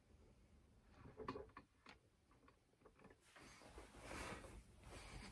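Near silence: room tone with a few faint rustles and light taps about a second in, then a soft faint hiss near the end, as of a person shifting and settling into place.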